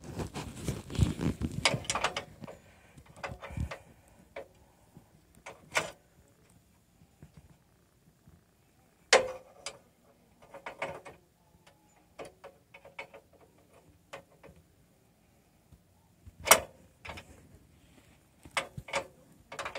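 Small open-end wrench clinking on a nut and metal mount under the RV while a stabilizer-jack switch is adjusted: a few seconds of handling clatter, then single sharp metal clicks several seconds apart.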